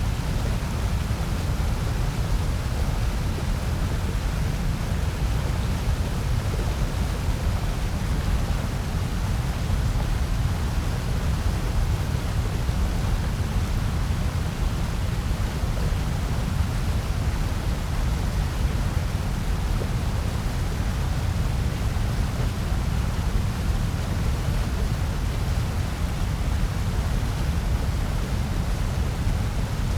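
Continuous generated noise meant for sleep and focus, billed as white noise. It is steady and unchanging, with most of its weight in the bass.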